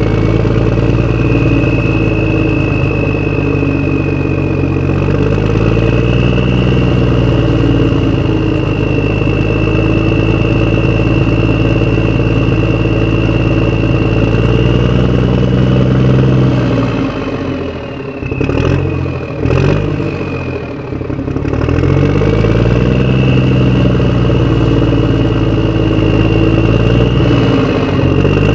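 Motorcycle engine running under way, its pitch rising and falling with the throttle. It eases off and falters for a few seconds about two-thirds of the way through, then picks up again.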